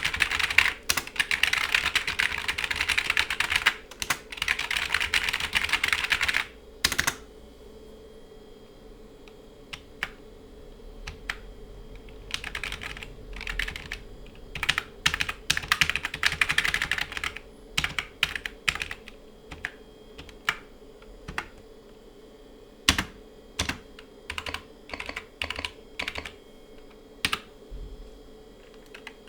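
Typing on a 1994 Compaq Enhanced Keyboard, a rubber-dome keyboard with tactile, fairly loud keystrokes. Fast continuous typing for about the first six seconds gives way to slower bursts and then single key presses with pauses between them.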